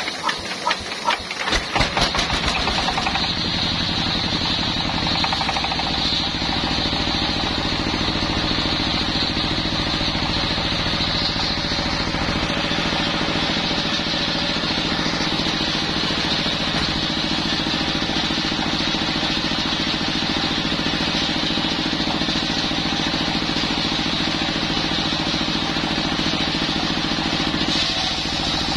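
Single-cylinder stationary diesel engine being hand-cranked and catching, its quick beats speeding up over the first two seconds, then running steadily. It is driving a circular saw bench by belt, with the blade spinning free and not yet cutting.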